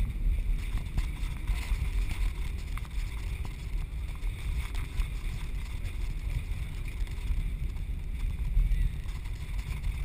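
Cabin noise of an Airbus A319 rolling along the runway after touchdown: a steady low rumble from the landing gear and engines with an even hiss above it.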